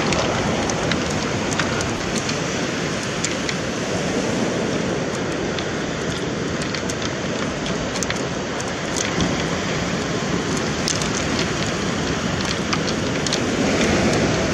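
Steady noise of surf breaking and washing on a pebble beach, with scattered sharp clicks through it.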